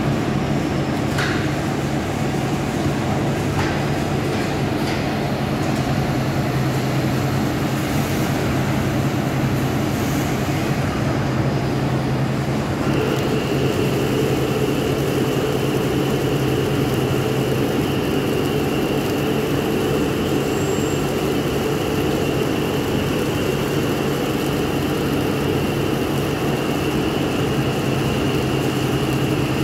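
CNC lathe turning a steel bar: steady machine hum of the spinning spindle with the turning tool cutting, a few sharp ticks in the first ten seconds, and a steady high whine that joins about halfway through and holds.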